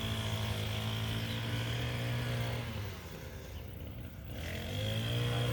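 An engine running steadily, fading and dropping in pitch about halfway through, then coming back and rising again near the end.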